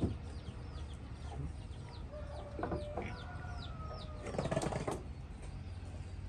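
Chicks peeping steadily in short, high, falling chirps, about three or four a second. A lower, drawn-out call sounds in the middle, and there is a short scuffle of noise about four and a half seconds in.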